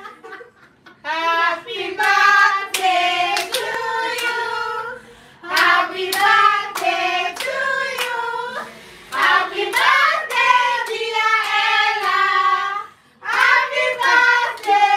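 Several voices singing a birthday song together to steady hand clapping, about two or three claps a second, with short pauses between the sung lines.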